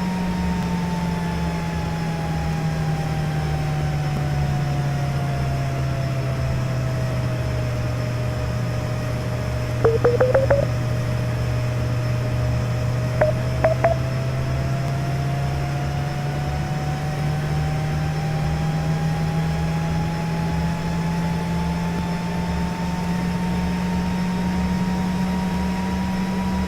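Printer cooling fan running with a steady whir whose pitch slowly falls over about the first eight seconds, then gradually rises back over the rest. Two brief clusters of clicks come about ten and fourteen seconds in.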